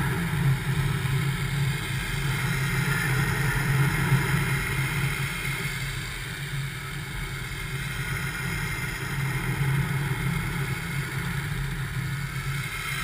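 Two-stroke paramotor engine and propeller running steadily in flight, heard close up from a camera hanging off the frame.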